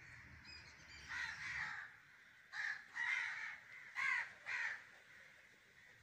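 Crows cawing: about five harsh caws, the first about a second in and the other four close together between two and a half and five seconds.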